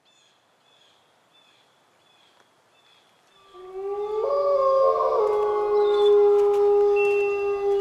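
Faint high chirps repeat about twice a second, then about three and a half seconds in, wolves start howling: several long overlapping howls, some rising at the start, then held. A few sharp clicks sound over the howls near the end.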